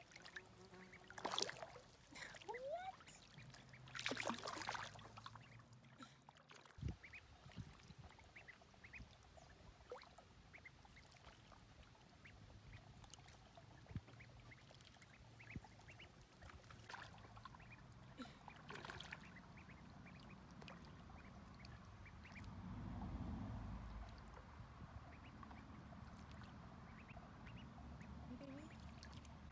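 Domestic ducklings peeping faintly while they swim and dabble in shallow creek water, with a few louder splashes in the first five seconds. A brief low rumble comes about three quarters of the way through.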